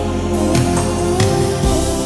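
Music with a steady beat and sustained chords.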